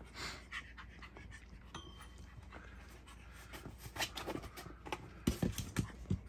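Yorkie puppy panting hard during wild play, rustling about in a fleece blanket. Near the end there are several sharp knocks and thumps.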